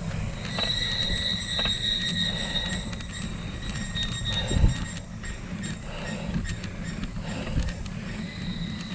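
Wind buffeting the microphone while riding a bicycle, with a high steady squeal for about four seconds after the start.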